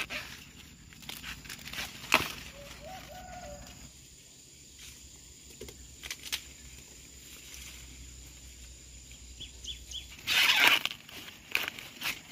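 Outdoor handling noises: a few sharp rustling cracks near the start and about two seconds in, and a longer rustle about ten seconds in, over a quiet rural background.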